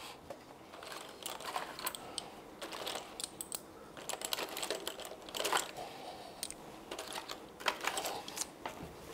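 Irregular light clicks and taps, like small objects being handled at close range.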